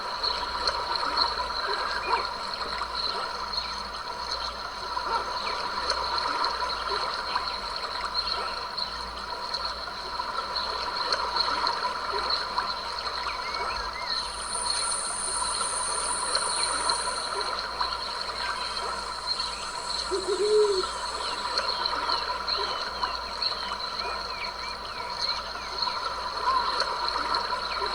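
A small stream trickling and splashing under steady high calls of wild creatures. A thin, very high tone runs for a few seconds just past the middle, and a short low call comes about two-thirds of the way through.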